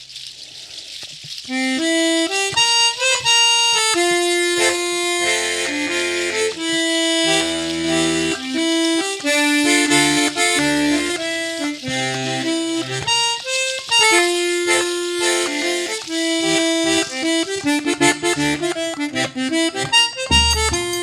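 Accordion (sanfona) playing a lively melody of held reedy notes over bass notes, starting about two seconds in after a brief quiet moment; the low bass notes grow heavier near the end.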